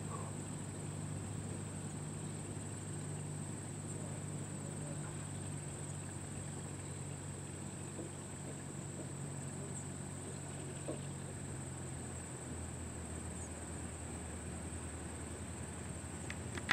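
Distant single-engine propeller plane's engine droning low during its landing rollout, its note stepping down lower about twelve seconds in, over a steady high-pitched insect trill.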